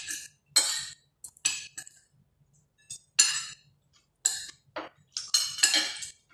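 Spoon and fork clinking and scraping against plates while eating, about ten short strokes with brief pauses between them.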